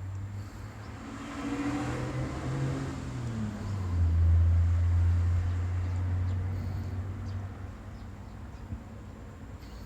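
A motor vehicle passing by, its low engine hum swelling to a peak about four seconds in and then fading away, with its engine note falling as it goes.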